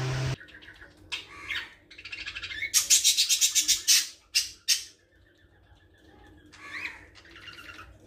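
Young cage-bird chick, sick with canker, squawking: a couple of short harsh calls, then a fast raspy run of squawks, and one more call near the end.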